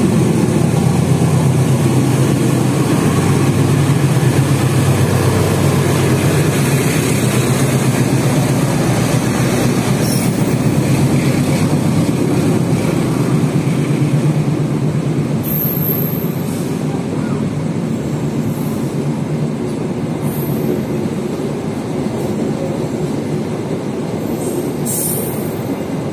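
An Indonesian Railways diesel-electric locomotive and a long train of stainless-steel passenger coaches passing through a station at speed without stopping, with a loud, steady rumble of wheels on the rails that fades slowly. A few brief high wheel squeals come in the second half.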